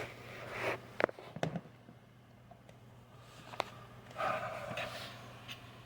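Handling noise from small parts being worked by hand: a few light, sharp clicks and brief rustles over a steady low hum.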